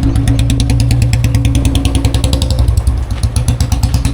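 Royal Enfield Bullet single-cylinder engine running at low, steady revs through a long-bottle, wide-mouth aftermarket silencer, a rapid even exhaust thump with a bassy tone.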